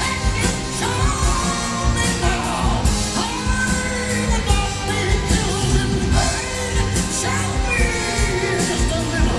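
Live rock band music with a steady low beat and singing over it, pitched lines gliding up and down.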